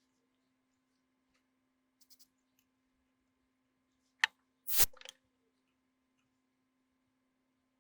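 Workbench handling sounds: a few faint ticks, then a sharp click and, half a second later, a louder clack about four and a half seconds in, over a faint steady low hum.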